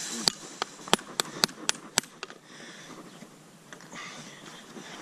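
Farrier's hammer striking the nails of a mule's new shoe to clinch them over against the hoof wall: about six sharp metal taps in the first two seconds, then a couple of fainter ones.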